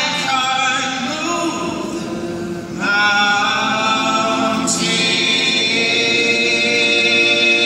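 Several voices singing long held notes in close harmony, nearly unaccompanied, in an acoustic folk song. More voices come in about three seconds in, and the chord grows fuller and louder.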